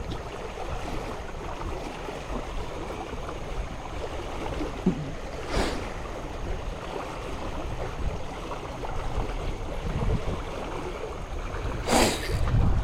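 Steady wind on the microphone over moving water, with two brief swishes, one about halfway through and one near the end.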